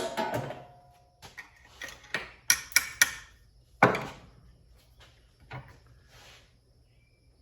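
Metal magnetron parts and tools being handled: a string of sharp clanks and knocks at uneven spacing, several in quick succession around the middle and the loudest about four seconds in, with a short metallic ring.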